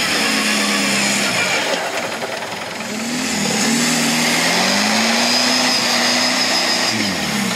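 Engine of an extreme off-road 4x4 competition vehicle revving hard on a dry dirt climb. It eases off about a second in, revs up again near three seconds, holds high, and drops away near the end, with a steady hiss over it.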